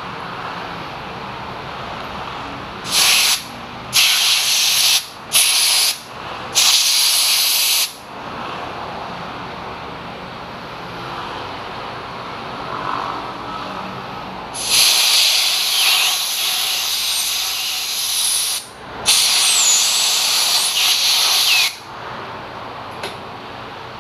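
Compressed-air blow gun hissing in blasts, its long nozzle pushed under a scooter's handlebar grip so the air loosens the grip on the bar. There are four short blasts, then two longer ones of three to four seconds each.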